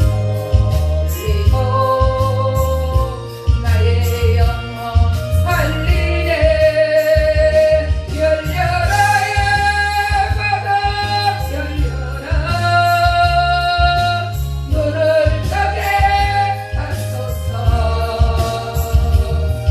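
Gospel song: a solo singer holding long notes over an accompaniment track with a steady bass beat.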